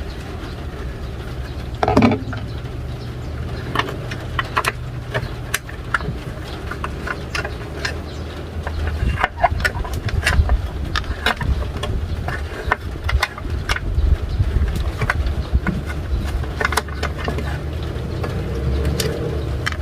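Short clicks, taps and knocks of hand tools and metal parts, irregular and several a second at times, as the inverter welding machine is taken apart to remove its cooling fan. A steady low hum runs underneath.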